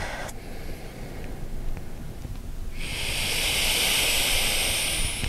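A long audible breath through the nose or mouth: a steady hiss that starts nearly three seconds in and lasts about two and a half seconds, with a faint rising whistle near its end.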